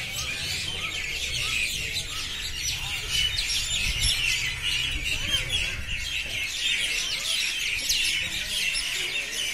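A flock of small birds chirping together, a dense, unbroken chorus of short high chirps overlapping one another, with a low rumble underneath for the first six seconds or so.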